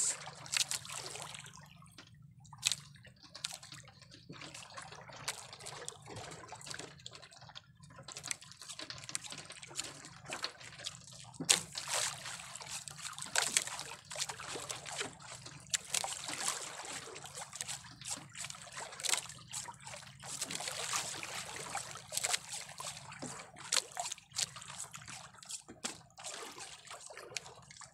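Sea water sloshing and trickling against a small boat, with irregular small splashes and drips.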